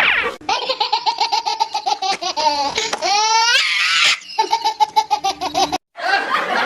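High-pitched, rapid laughter in quick, even pulses, with a rising squeal about three seconds in. It breaks off suddenly near the end.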